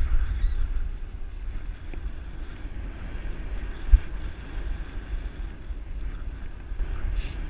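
Wind buffeting the microphone of a moving camera while skiing downhill, a steady low rumble, with the hiss of skis running over groomed snow. There is one brief knock about four seconds in.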